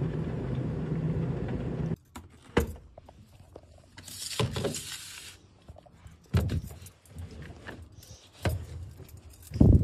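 Tumble dryer running with a steady hum that cuts off suddenly about two seconds in. Then scattered knocks and thumps from handling, a brief rustle around the middle, and a loud thump near the end.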